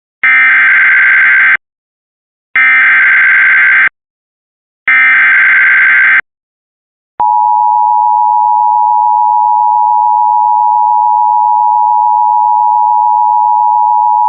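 Emergency Alert System SAME header: three identical bursts of warbling data tones, each about a second and a half long. About seven seconds in, the steady two-tone EAS attention signal begins and holds. Together they herald a new severe thunderstorm warning.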